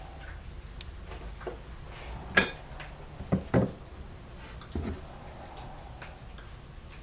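Handling sounds as a brush is lifted out of an open can of wood stain on a workbench. A sharp click comes about two and a half seconds in, then two quick knocks about a second later and a softer knock near five seconds.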